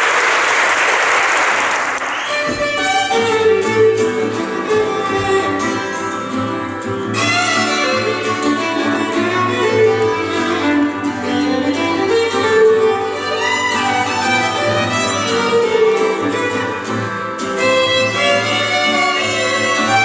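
Audience applause that cuts off about two seconds in, giving way to violin music that carries a melody.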